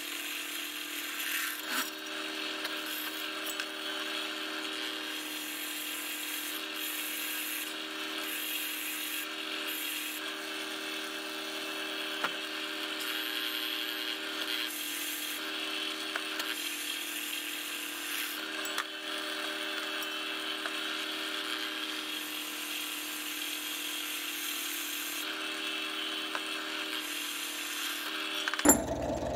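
Drill press running, its twist bit boring into a small square steel block: a steady motor hum under the scrape of the bit cutting metal. There is a louder clatter near the end.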